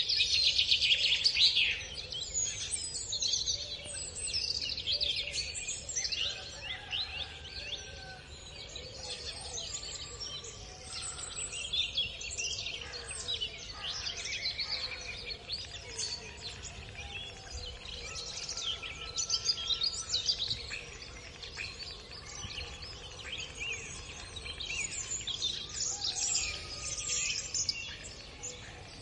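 Many small birds chirping and singing at once in a continuous chorus of high, quick calls, busiest in the first couple of seconds.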